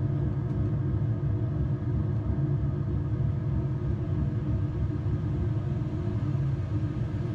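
ATR 72-600 flight simulator's engine and runway sound during the takeoff roll at takeoff power: a steady low rumble with a few steady tones above it.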